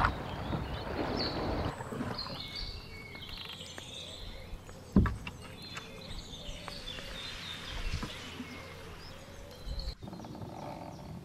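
Wind and water noise on a moving canoe, giving way after a second or two to quieter river ambience with birds chirping. A single sharp knock about five seconds in is the loudest moment, with a smaller one a few seconds later.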